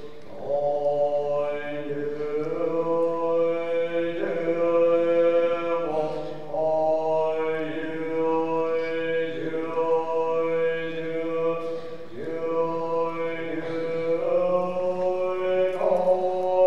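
A Tibetan Buddhist monk chanting solo in a male voice. He holds long melodic notes that step up and down in pitch, with short breaths about every six seconds.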